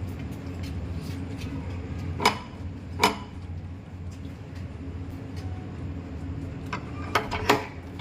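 A steady low hum with a few sharp knocks over it: two about two and three seconds in, then a quick cluster of three near the end.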